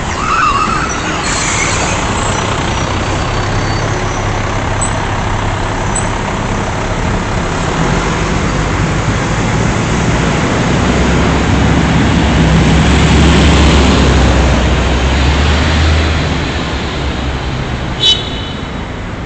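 Street traffic with a heavy vehicle's engine running close by. It grows louder through the middle and drops away about three-quarters of the way through. Near the end comes a brief high-pitched squeal.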